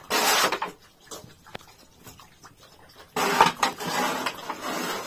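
Water splashing onto a wet concrete pen floor, twice: a short splash at the start and a longer one from about three seconds in.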